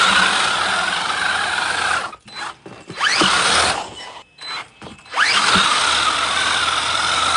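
Electric RC car motor spinning up with a fast rising whine, then running at a steady high whine. The whine cuts out and spins up again twice, with short choppy gaps between the runs.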